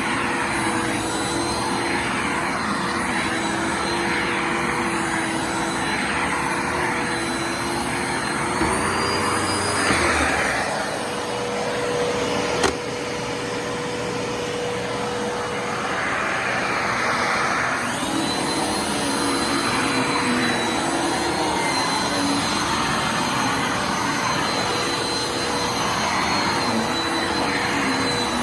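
Bissell Lift-Off Multi Cyclonic Pet upright vacuum cleaner running, a steady motor whine with the rush of air. About ten seconds in the whine rises in pitch and changes tone for several seconds, with a single click in the middle, then settles back to the first whine.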